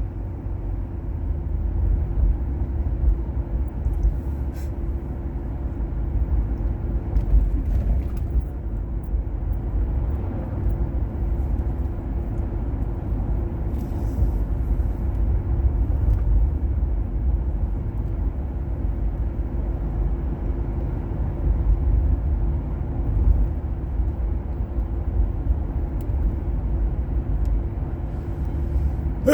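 Steady low rumble and drone of a car driving, engine hum and tyre noise heard from inside the cabin.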